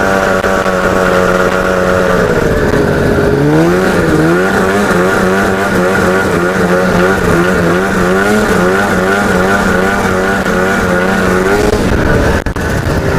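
Ski-Doo MXZ snowmobile's two-stroke 700 engine, fitted with a Dynaport exhaust and with its airbox removed, running hard under a rider. Its pitch sags about two seconds in, climbs back near four seconds, then wavers up and down with the throttle.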